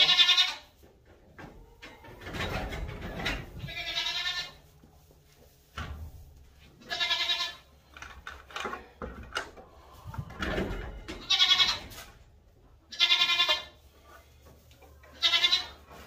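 A young goat bleating again and again, about six high, quavering calls a couple of seconds apart, the distress calls of a kid left alone in a stall without its mother and siblings.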